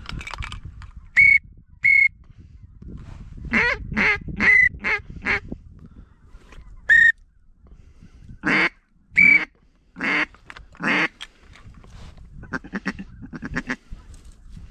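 Mallard quacking, most likely blown on a hunter's duck call to bring in an approaching flock: loud single quacks, a short descending series of quacks about four seconds in, more single quacks, then a fast run of low chatter like a feed call near the end.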